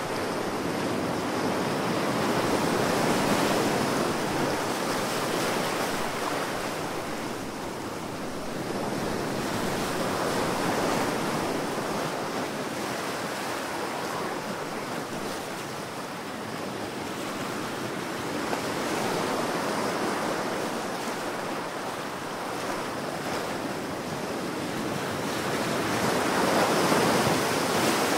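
Ocean surf: waves breaking and washing in one after another, the rush swelling and easing about every eight seconds.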